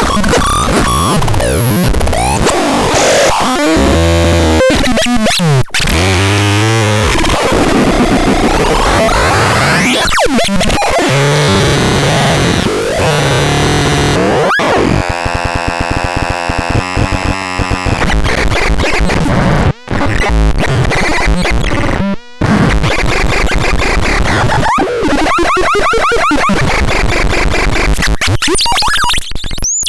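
Harsh, loud electronic noise: dense, chaotic hiss and buzz with tones sweeping up and down and stuttering, glitchy patterns. It cuts out briefly twice about two-thirds of the way through.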